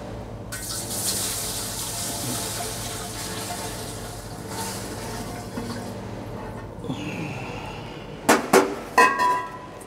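Low wines poured from a glass jar into a still, a steady rush of liquid that stops about seven seconds in. Near the end, a few sharp ringing clinks of the glass jar.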